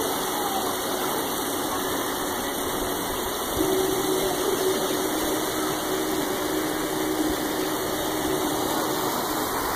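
Steady rush of river water, with a faint steady hum that grows a little louder about three and a half seconds in.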